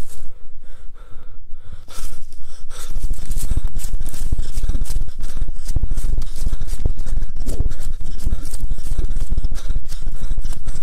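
Someone running over dead leaves and undergrowth, breathing hard, with quick repeated rustling strokes. A constant low rumble from wind and handling noise on the handheld camera's microphone runs under it.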